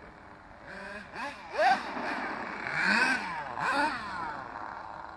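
Twin Kyosho GXR28 two-stroke nitro engines of a radio-controlled Giga Crusher monster truck revving up and down as it drives, the pitch rising and falling several times.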